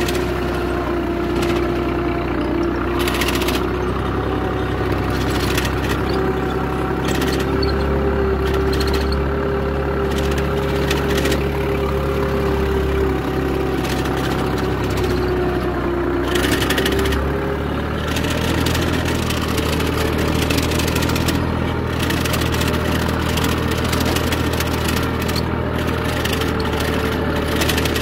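Farm tractor engine running steadily under load while pulling a tine cultivator through soil, with now and then a short rattle or knock from the implement.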